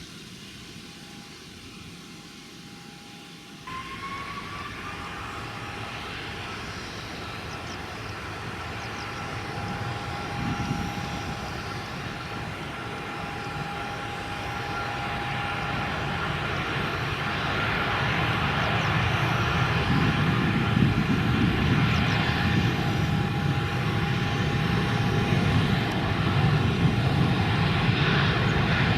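Boeing 777-300 jet engines spooling up: a whine rises in pitch a few seconds in, then the engine noise grows steadily louder with a deepening rumble.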